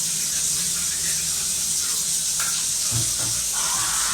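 Water running steadily with an even hiss, as from a tap or spray during dish cleaning, with a short low knock about three seconds in.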